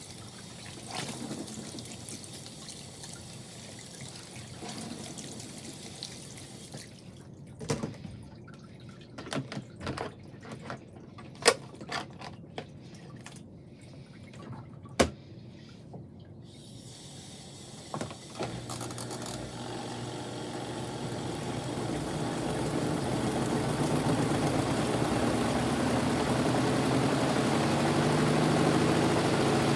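Kuppet portable washing machine: water trickling with a few sharp clicks, then about 18 seconds in its motor starts and runs with a steady hum that builds over several seconds.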